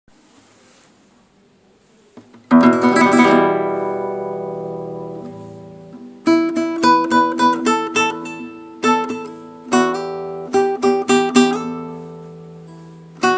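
Instrumental opening of a Kurdish song on a plucked string instrument: a strummed chord about two and a half seconds in that rings out slowly, then short phrases of quick plucked notes and strums.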